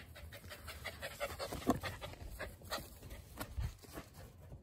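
Dog panting in quick, short breaths, with a low thump about three and a half seconds in.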